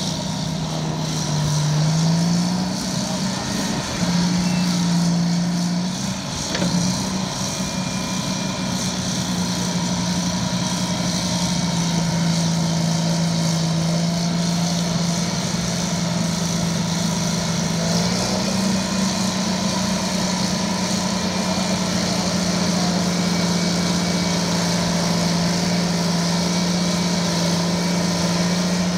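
Euclid TC-12 crawler dozer's twin Detroit Diesel 6-71 two-stroke diesel engines running hard as the dozer pushes dirt with its blade. The engine note rises about two seconds in, sags briefly near six seconds, and rises again after about eighteen seconds.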